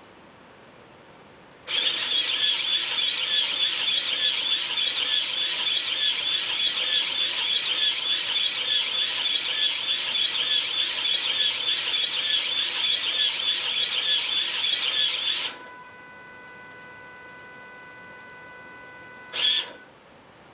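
Motors of a small, low-cost delta robot running as its three arms move rapidly: a loud, high-pitched buzz that lasts about fourteen seconds and then stops abruptly. A faint steady hum follows while the arms hold position, and a brief burst of motor noise comes near the end.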